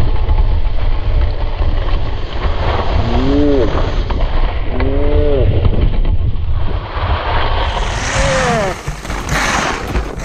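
Heavy wind buffeting the microphone while moving at speed down a ski slope, a steady low rumble with hiss. Three short calls that rise and fall in pitch break through it, about three, five and eight seconds in.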